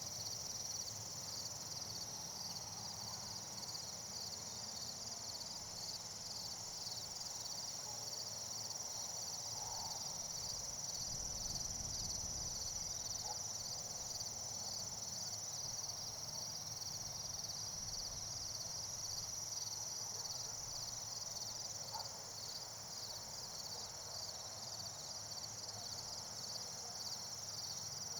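Steady, high-pitched chorus of trilling insects, unbroken throughout, with a few faint short chirps now and then.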